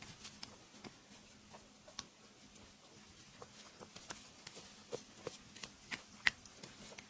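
Hands working over skin during a massage: faint, irregular soft clicks and taps, the sharpest a little after six seconds in, over a low steady hum.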